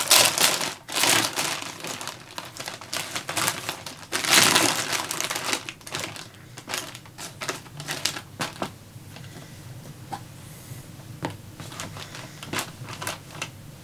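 Food packaging crinkling and rustling as it is handled and opened, in dense loud bursts for the first few seconds, then sparser clicks and rustles.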